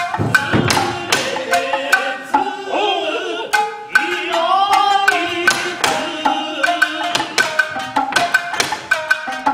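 Nagauta music accompanying a Japanese dance: frequent sharp percussive strikes over plucked shamisen notes, with a held, wavering melody line near the middle.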